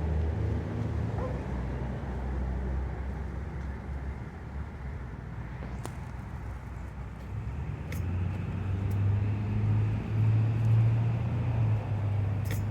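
Low engine rumble from a motor vehicle, growing louder in the second half, with a few faint clicks.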